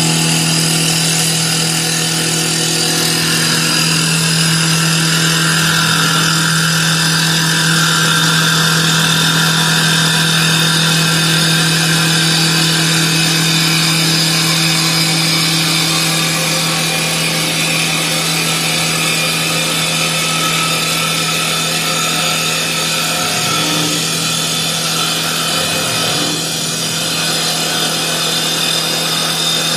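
CNC wood lathe running and turning a wooden blank: a steady motor hum under the noise of the cutter working the wood. It is briefly quieter near the end.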